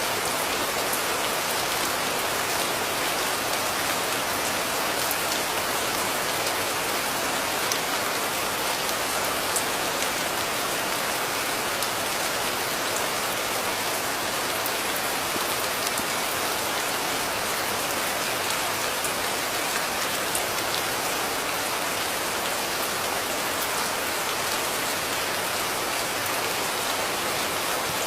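Steady rain: a dense, even hiss of falling rain with faint scattered drop ticks, no thunder.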